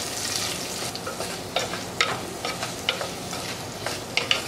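Onions with salt frying in oil in an unglazed clay pot, sizzling steadily as they are stirred with a wooden spoon. Scattered light clicks and scrapes of the wooden spoon against the pot.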